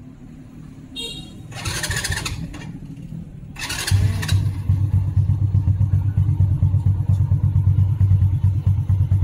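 SYM Bonus 110's small single-cylinder four-stroke engine being started on its first start after an oil change. The starter cranks in two short bursts, and the engine catches about four seconds in and settles into a steady idle.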